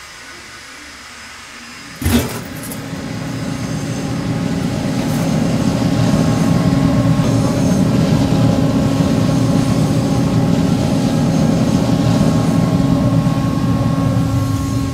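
Fuel-fired pit furnace melting bronze in a crucible, running with a loud steady roar from its burner and blower, with a steady hum in it. A sharp bang comes about two seconds in, after which the roar swells for a few seconds and then holds.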